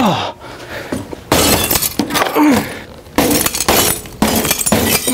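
Cracked window glass backed by 3M security film being struck again and again, about five heavy blows, each a crunch of breaking glass. The pane crazes under the blows but the film holds it together.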